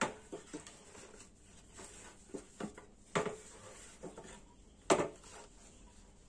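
Scattered light taps and knocks from a PVC pipe and a wooden saw board being handled, with three louder sharp knocks: one at the start, one about three seconds in and one about five seconds in.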